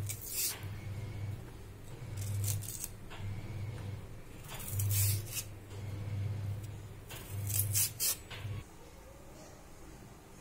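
A kitchen knife scraping and cutting the peel off raw green bananas, in four short strokes about two seconds apart, over low handling noise that stops near the end.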